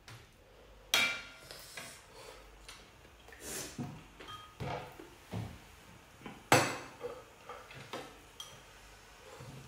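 Metal ladle clinking against a hot pot and a small glass bowl while scooping out mussels and broth, with lighter clicks of chopsticks on bowls. The sharpest clinks come about a second in, with a short ring, and again around six and a half seconds.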